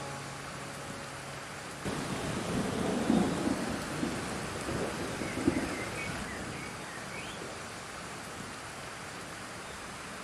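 Steady rain falling, with a roll of thunder that comes in suddenly about two seconds in, swells twice and dies away a few seconds later.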